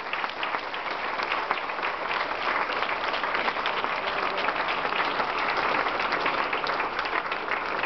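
Audience applauding steadily, many hands clapping at once without letting up.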